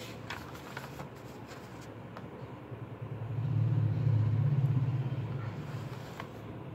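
Low rumble of a passing motor vehicle, swelling about three seconds in and then fading away. A few light paper rustles and clicks come first as the manual's pages are handled.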